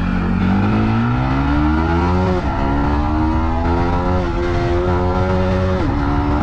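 Yamaha MT-15 V2's 155 cc single-cylinder engine accelerating under load, its pitch climbing steadily. It shifts up twice, the revs dropping briefly about two and a half seconds in and again near the end before climbing once more.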